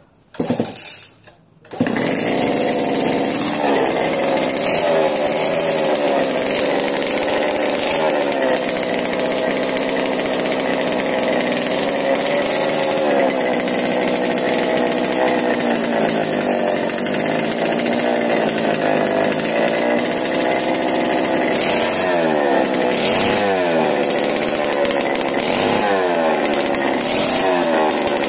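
Small two-stroke chainsaw engine pull-started: a couple of short bursts, then it catches under two seconds in and keeps running. Its pitch rises and falls as the throttle is blipped, several times in quick succession near the end.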